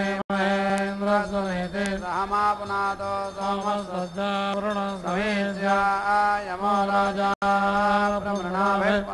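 Male voices chanting Sanskrit mantras together, mostly held on one reciting pitch with short wavering turns. The sound cuts out for an instant twice.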